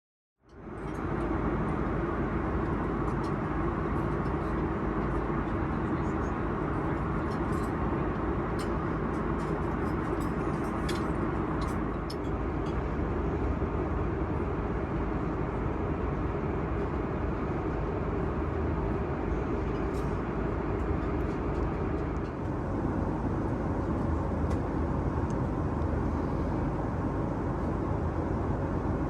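Steady cabin roar of an Airbus A330-300 in flight: engine and airflow noise at an even level, with a few faint clicks in the first half.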